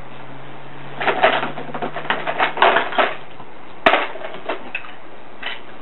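Handling noise: a run of scratchy clicks and small clatters, then one sharp click about four seconds in, as tools and the plastic tarantula enclosure are handled.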